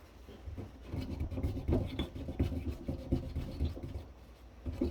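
Irregular rubbing and scraping strokes on the thermal adhesive left on a circuit-board CPU chip, as it is worked at to clean it off. The adhesive is stubborn and does not come clean.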